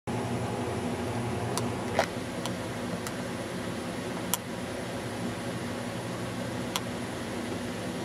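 Steady low background hum with a handful of brief, sharp clicks or chirps over it. The loudest comes about two seconds in, and another strong one just after four seconds.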